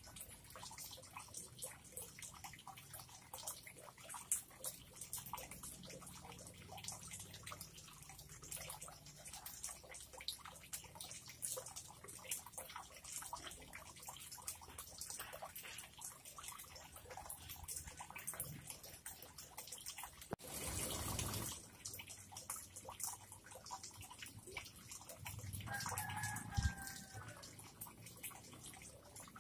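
Faint, scattered dripping and ticking of water, with a brief rush of noise about two-thirds of the way through and a short tonal call near the end.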